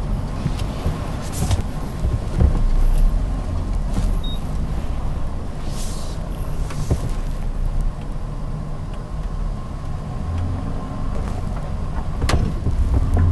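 2023 Nissan Frontier PRO-4X's V6 engine running low and steady as the truck crawls a rocky, rooty off-road trail, with occasional knocks scattered through.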